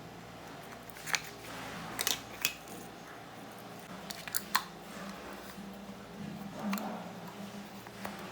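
A series of sharp clicks and taps, several in quick pairs, over a low steady hum.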